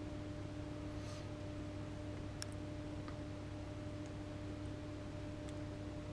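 Faint steady hum, with a few light ticks spread through it.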